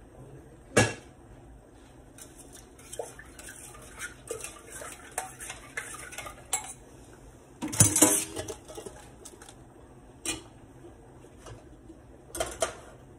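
A metal spoon stirring and clinking against the inside of a stainless steel pot. There is a sharp metal clank about a second in, a louder clatter about eight seconds in, and two quick clanks near the end as the pot is handled.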